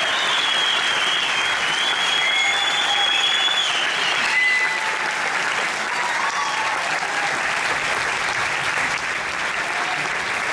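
Audience applauding steadily at the end of a stage dance, with a few drawn-out high tones over the clapping in the first half.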